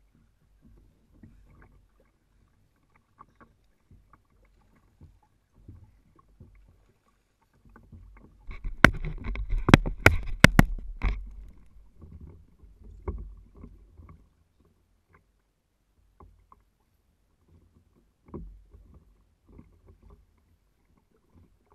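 Small knocks and water sloshing on a fishing kayak's hull, with a cluster of sharp clicks and knocks about nine to eleven seconds in as gear is handled aboard.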